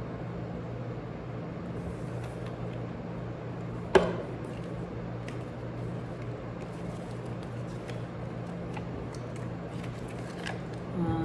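Scattered small clicks from handling a jump rope handle, with one sharp click about four seconds in, over a steady low hum.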